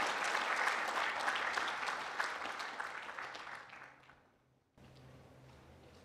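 Audience applauding, the clapping dying away about four seconds in, followed by a faint steady low hum of the hall.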